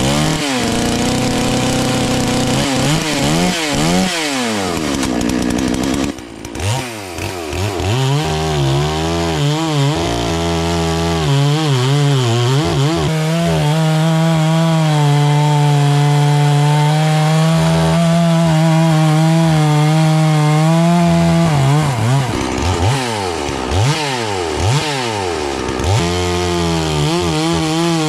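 Farmmac F380W two-stroke chainsaw revving and cutting poplar. The engine blips up and down, dips briefly about six seconds in, then holds a steady pitch under load through a long cut, with more throttle blips near the end.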